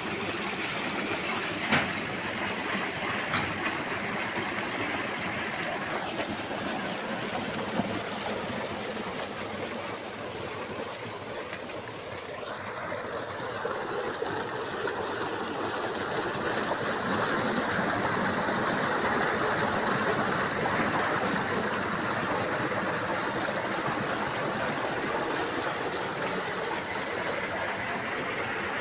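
Tubewell discharge pipe pouring a heavy stream of water into a concrete tank, a steady rushing splash. It grows louder about halfway through. Two short knocks come in the first eight seconds.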